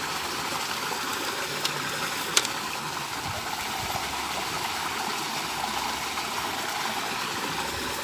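Steady rushing hiss of running water, with two sharp clicks a little under a second apart about two seconds in.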